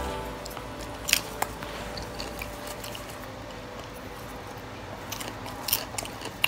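A few faint, scattered crunches and clicks of someone eating freshly made stovetop popcorn, the clearest about a second in and two more near the end.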